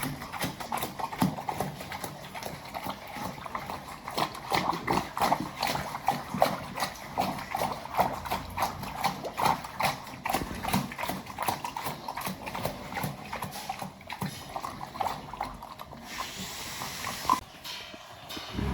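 Pigs feeding, a dense run of rapid wet smacking and chomping sounds, with a brief hissing rush near the end.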